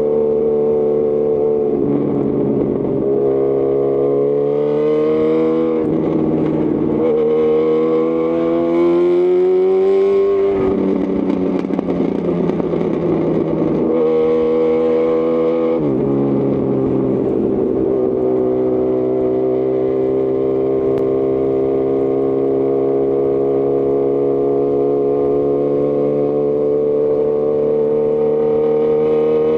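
2018 Honda CB1000R's inline-four engine running through a Lextek CP1 full exhaust. The revs climb twice with a quick drop at a gear change between them. The revs then fall away about ten seconds in and the sound turns rough for a few seconds. After another shift about sixteen seconds in, the engine pulls steadily with the revs slowly rising.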